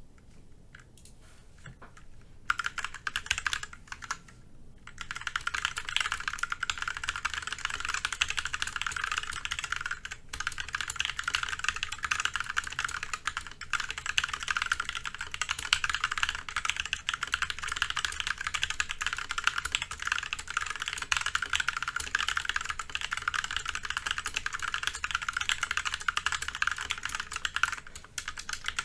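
Fast continuous typing on a Massdrop ALT mechanical keyboard with linear Kailh Pro Burgundy switches, a dense stream of key clacks. A few single keystrokes come first, and steady typing starts about five seconds in. The space bar is damped with rubber bands underneath, which makes it sound almost clicky.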